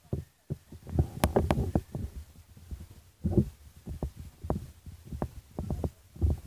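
Irregular low thumps and rumbles of handling noise on a handheld camera's microphone while it is being carried.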